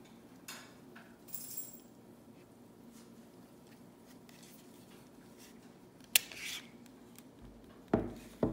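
Glock 19 pistol being handled with its magazine taken out: soft plastic rubbing, a sharp click about six seconds in with a short rattle after it, then two heavier knocks near the end.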